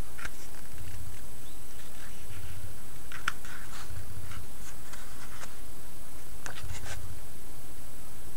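Glossy pages of a thick catalog being flipped and handled: short papery rustles and brushes, scattered unevenly, with soft low bumps now and then.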